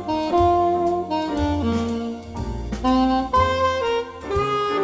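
Saxophone playing a jazzy melody in a run of held notes, over an accompaniment with a low bass line underneath.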